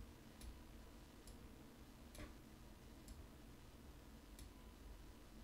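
Faint computer mouse clicks, about five spread over a few seconds and the loudest a little past two seconds in, made while dragging and dropping items on screen, over a low steady room hum.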